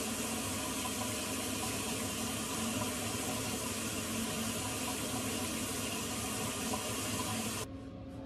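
Tap water running steadily into a sink, shut off suddenly near the end.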